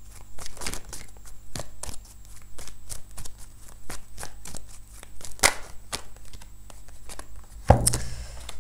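A deck of cards being hand-shuffled, the cards slapping and rustling in a quick run of crisp clicks, several a second. A heavier thump comes near the end.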